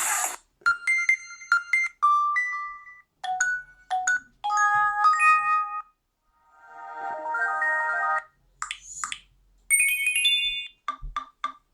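Nokia 6 smartphone speaker playing a run of different short message alert tones one after another, each a chime or short jingle lasting about a second, with brief pauses between them.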